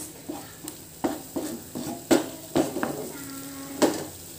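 Wooden spatula stirring and scraping spice paste around a nonstick frying pan in a little hot oil, with sizzling underneath. Several sharp knocks and scrapes of the spatula against the pan.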